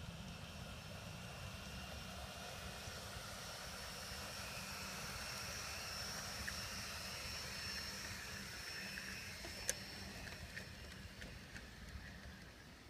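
USA Trains G-scale New York Central PA-1/PB-1 model diesel locomotives running on analog power: a steady high motor-and-gear whine that swells as they pass and fades as they run away, over a low rumble. One sharp click about ten seconds in.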